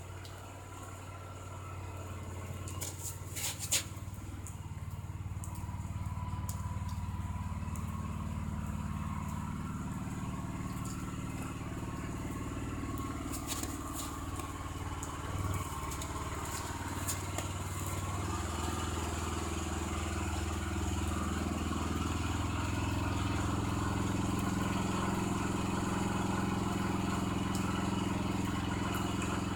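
Snowblower engine running steadily at an even pitch, growing louder over the first several seconds, with a couple of sharp clicks along the way.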